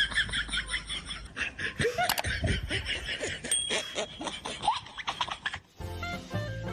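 Laughter: quick, high-pitched pulsing giggles at first, then looser laughing and snickering. Near the end a short burst of music comes in.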